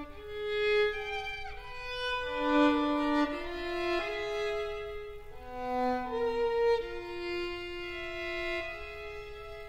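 Solo violin playing a slow passage of held notes, with a slide downward in pitch about a second and a half in.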